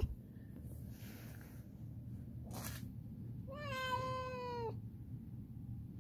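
A cat gives one long meow, a little over a second, starting about three and a half seconds in; it holds its pitch and then drops at the end.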